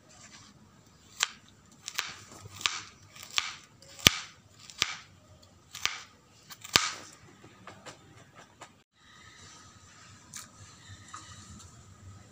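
Knife chopping banana stem on a plastic cutting board: a series of sharp knocks, roughly two a second, that stop about seven seconds in.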